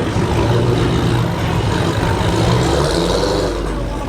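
Car engine running with a steady, deep rumble, its low end growing heavier near the end, with faint voices of people talking in the background.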